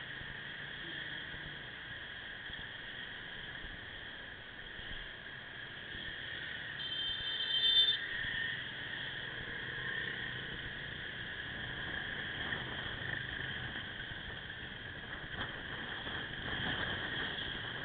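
Riding noise of a Suzuki Axelo motorcycle moving through city traffic, picked up by a small camera microphone: a steady hiss with a constant high whine. A brief high beep sounds about 7 seconds in.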